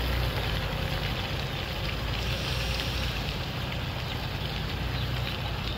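A vehicle engine running steadily with a low rumble, under an even hiss of rain and wind on the microphone.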